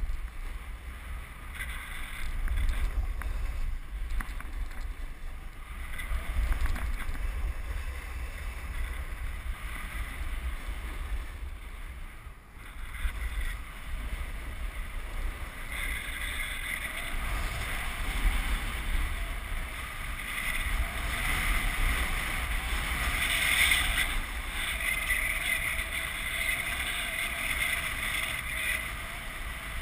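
Wind buffeting the microphone while riding a snowboard downhill at speed, with the board hissing and scraping over the snow. The scraping grows louder and brighter about halfway through.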